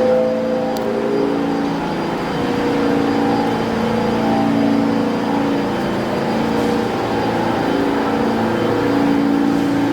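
R68A subway car running along the track, heard from inside the car: a steady rumble of wheels on rail under a motor hum whose pitch drifts up and down.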